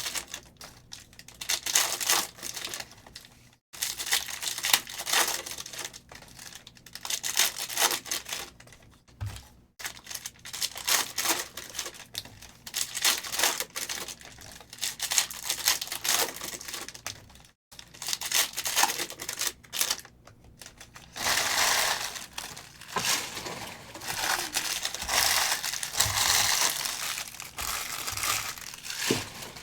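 Plastic wrappers of 2022 Panini Prizm No Huddle football card packs being torn open and crinkled, in repeated bursts with short pauses, then a longer stretch of steady crinkling in the second half.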